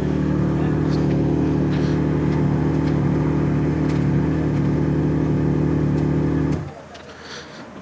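Yamaha XJ6 inline-four motorcycle engine running at a steady, unchanging speed, then switched off about six and a half seconds in, after which it goes quiet.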